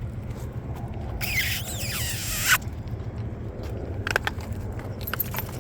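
Truck running with a steady low rumble; about a second in, a loud hiss with a sliding squeal lasts about a second and a half, and a sharp click follows near the end.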